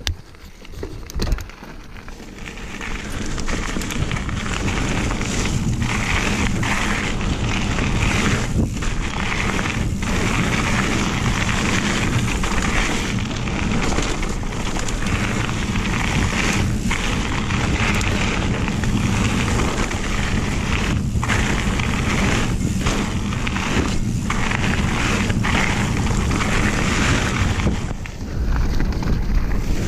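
Mountain bike riding fast down a gravel singletrack: tyres crunching and rattling over the gravel with wind buffeting the microphone, building up over the first couple of seconds after a few sharp knocks at the start.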